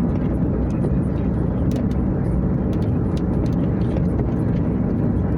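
Steady road and engine noise inside a moving car's cabin, with faint scattered ticks of rain striking the car.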